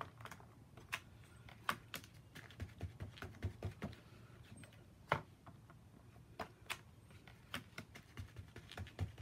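Faint, irregular light taps and clicks from hands working a MISTI stamp positioning tool, opening and closing its hinged clear plastic lid and pressing the stamp down.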